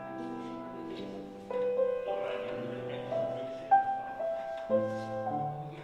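Slow instrumental keyboard music: held chords with a melody moving above them, a new note or chord every second or so.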